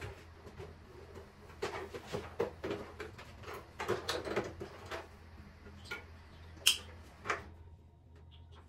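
Scattered light knocks and clicks at irregular intervals, with one sharper click about two-thirds of the way in.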